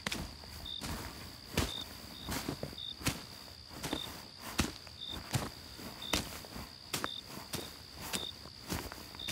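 Steady walking footsteps on leaf-covered ground, about two steps a second, over crickets chirping: a steady high trill with short chirps every second or so.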